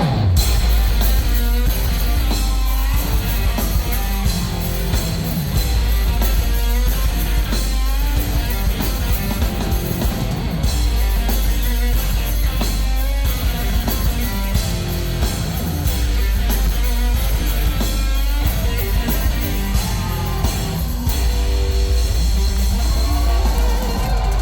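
Live rock band playing an instrumental stretch: electric guitar over a drum kit, loud and driving, with no singing.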